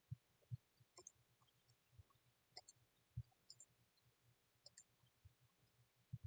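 Near silence with faint, scattered computer mouse clicks, several in quick pairs, and a few soft low thumps.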